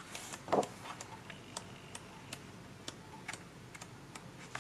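Paper pages of a colouring book being handled and turned: a brief soft rustle about half a second in, then faint, light, irregular ticks and taps.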